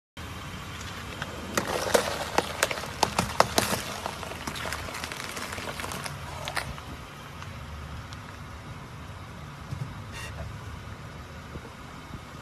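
A car's tyre crushing crunchy objects: a quick run of sharp cracks and crackles for about two seconds soon after the start, then a few scattered clicks, over the low steady running of the car's engine.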